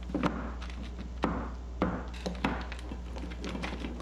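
A series of about four sharp knocks, roughly half a second to a second apart.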